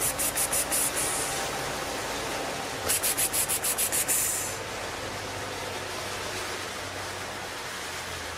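Cat chewing its food in quick runs of crisp, rasping crunches, about seven a second: one run in the first second and another from about three to four seconds in. A steady hiss fills the gaps and continues to the end.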